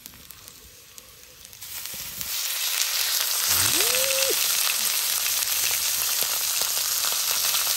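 Meat sizzling as it is laid on a hot cooking surface over the fire. It is quiet at first; about two seconds in the sizzle comes up and then keeps on loud and steady.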